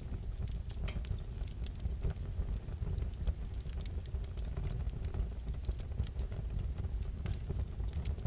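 Wood fire in a fireplace crackling, with irregular sharp pops over a low, steady rumble of the flames.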